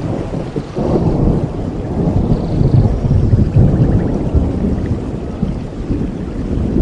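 Tropical rain falling steadily, with a long rumble of rolling thunder that swells about a second in and slowly eases toward the end. A bird chirps faintly once in the middle.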